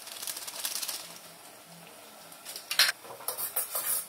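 A metal spoon clicking and scraping against a steel kadai as noodles are stirred. There is a light rattle in the first second, one sharp knock about three seconds in, then a run of quick clicks.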